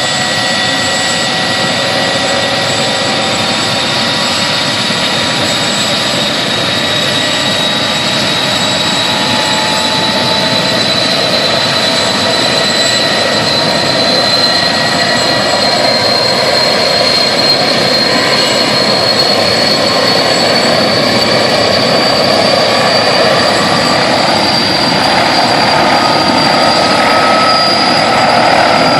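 Firefighting helicopter's turbine engines running, a high whine slowly rising in pitch over a steady rush of noise that grows a little louder toward the end.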